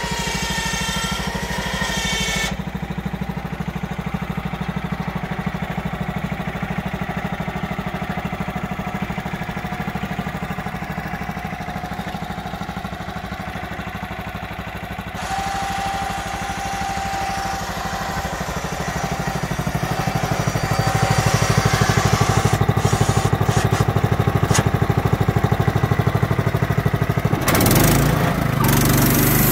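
Small engine of a Clarke portable bandsaw mill running steadily, with abrupt changes in tone where the footage jumps. It grows louder about two-thirds of the way through.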